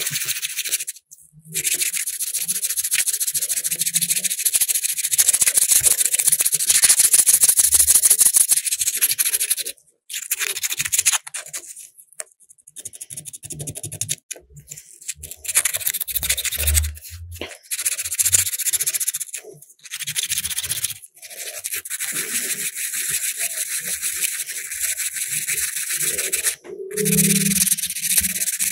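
Abrasive rubbing on a metal lighter's parts, in spells of rapid back-and-forth strokes broken by short pauses.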